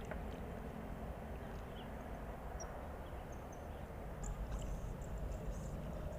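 Steady outdoor background noise, a low rumble and hiss, with scattered faint high chirps throughout.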